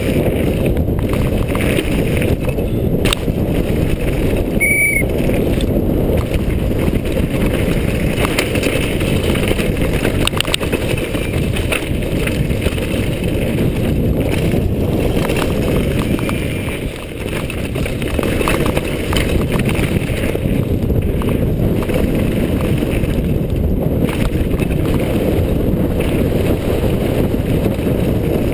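Wind rumble on the rider-mounted microphone together with the rattle of a hardtail mountain bike riding fast down a rough dirt downhill track, with a brief lull about seventeen seconds in.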